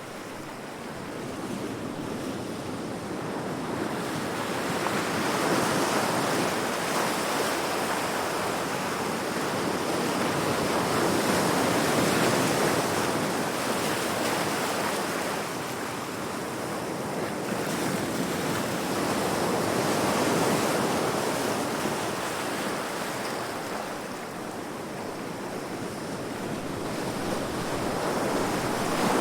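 Heavy ocean waves crashing against rocks: a continuous rushing surf that swells and eases in slow surges every several seconds.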